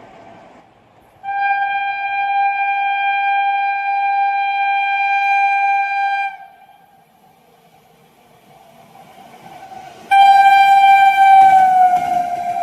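Indian Railways locomotive horn: one long steady blast of about five seconds, then a low train rumble building up, and a second, louder blast near the end whose pitch drops as the locomotive goes by.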